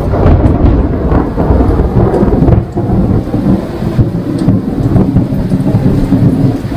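Heavy rain with a rolling rumble of thunder. The rumble is strongest for the first couple of seconds and eases off after, leaving the steady hiss of the rain.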